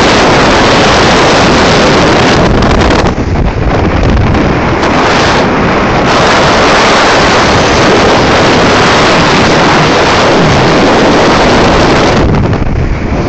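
Loud, steady rush of wind buffeting the microphone over the running noise of a fast rigid inflatable boat driven by three Yamaha 350 hp outboard motors. The wind noise dips briefly about three seconds in and again near the end.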